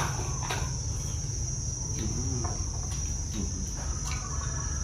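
Insects trilling steadily on one high, unbroken note, over a constant low rumble, with a few faint clicks.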